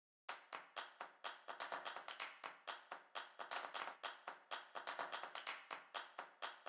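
Black permanent marker writing on paper: a quick run of short scratchy strokes, about four or five a second, starting about a third of a second in.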